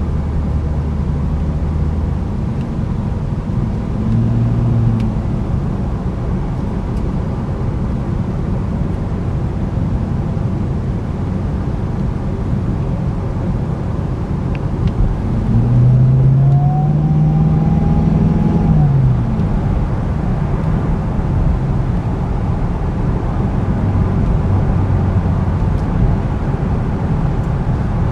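Inside the cabin of a 2011 Cadillac CTS-V Coupe on the move: steady road and engine rumble from its supercharged V8. The engine pitch climbs twice, briefly about four seconds in and for longer past the middle, then falls away again.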